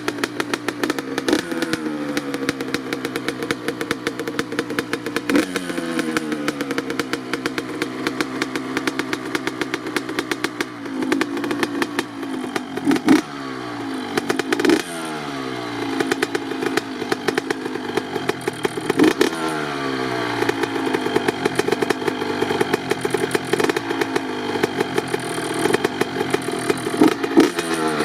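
2007 Honda CR85 two-stroke engine, with a Pro Circuit R-304 shorty silencer, revving repeatedly; the pitch jumps up and falls back several times between blips.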